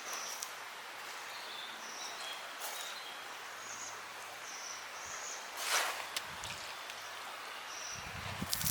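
Outdoor ambience under a steady hiss: short high chirps every second or so and a few sharp clicks, the loudest about six seconds in, then low rustling near the end.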